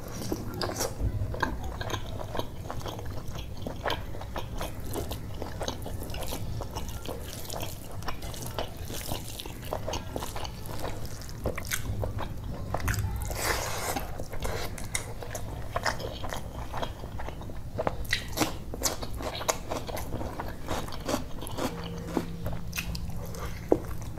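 A man biting and chewing curried chicken and rice eaten by hand, with a dense stream of quick mouth and food clicks.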